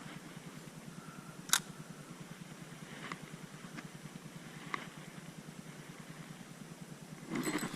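Creek water running steadily, with a few sharp clicks, the loudest about a second and a half in, and a louder rush near the end.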